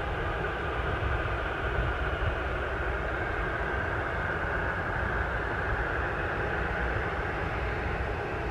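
Jet engine noise from a departing Ryanair Boeing 737 at takeoff power: a steady low rumble under a strong hissing roar, swelling slightly around the middle.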